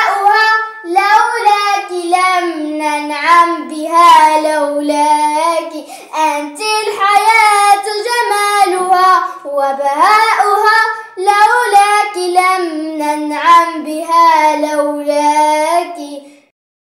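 A young girl singing an Arabic nasheed solo, with no accompaniment; her voice stops suddenly just before the end.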